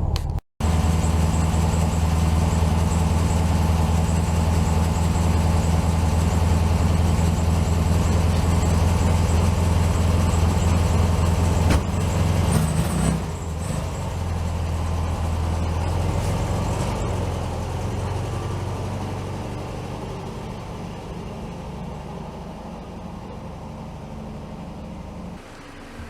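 1967 VW Beetle's air-cooled flat-four engine running steadily with a low, even hum. About halfway through it drops in level, then fades away gradually.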